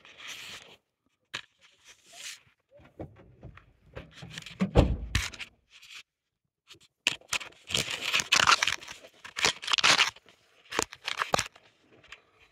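Cloth rustling and scraping against a phone's microphone in irregular bursts, with a low thump about five seconds in.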